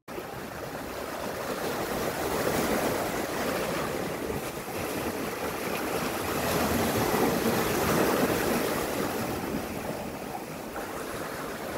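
Sea waves washing in: a steady rushing noise with no tune in it, swelling twice, about two to three seconds in and again around seven to eight seconds in.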